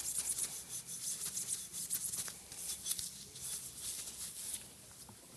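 Steel wool scrubbing back and forth on a steel retaining pin, a quick run of scratchy rubbing strokes that clean built-up gunk off the shaft. The strokes die away about four and a half seconds in.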